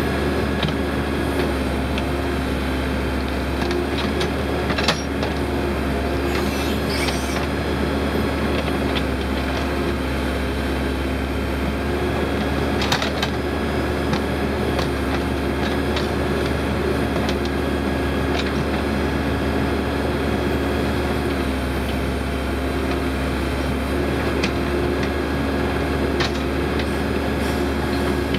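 Case 580L Turbo backhoe's turbocharged four-cylinder diesel running steadily under hydraulic load as the backhoe arm and bucket work dirt. A few short knocks from the bucket and linkage, the sharpest about five and thirteen seconds in.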